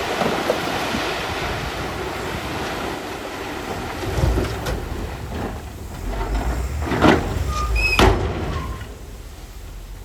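Heavy earthmoving machinery working: a rough mechanical rumble with heavy knocks and a brief high metal squeal in the second half.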